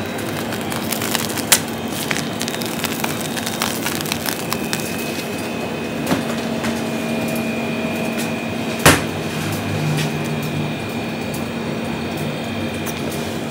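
Steady machine hum and hiss of a working kitchen, with a constant low tone, broken by a few sharp clicks or knocks, the loudest about nine seconds in.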